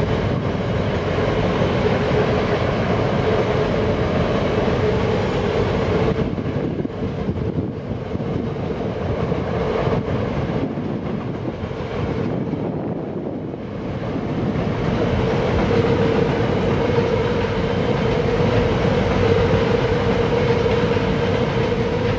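Container freight train rolling along the track, a steady rumble with a humming tone and some wheel clatter. It eases off for a stretch in the middle and then builds again.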